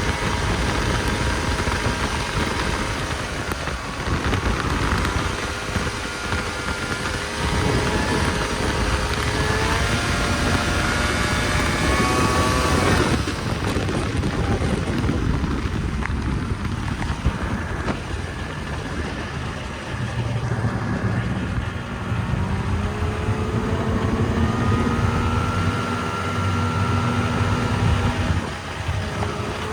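Snowmobile engine running under way, its pitch climbing as it speeds up, dropping off sharply about 13 seconds in, then climbing again.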